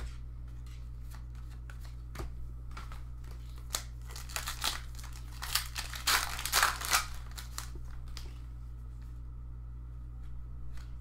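Crinkling plastic and light clicks and rustles of trading cards and their packaging being handled, thickest in the middle, over a steady low hum.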